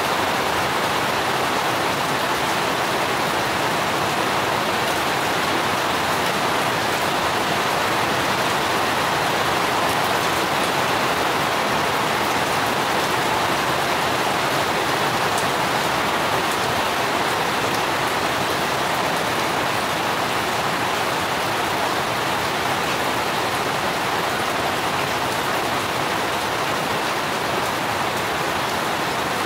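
Steady rain falling on garden plants: an even, unbroken hiss with a few sharper drops standing out.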